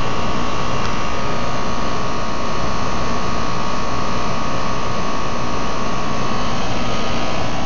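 Steady whir of a running fan with a constant humming tone, unchanging throughout.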